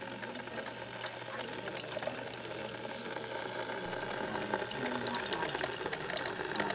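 Hamilton Beach electric kettle heating water: a steady hiss that grows slightly louder, with a few faint ticks.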